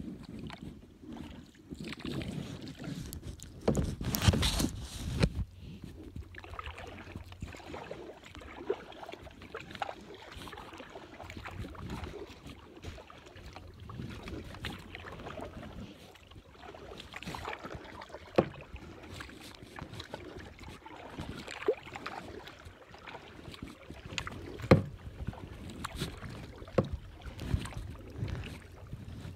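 Kayak paddle strokes in water, splashing and dripping as the kayak moves along, with scattered sharp knocks and clicks; the loudest come about four seconds in and near twenty-five seconds.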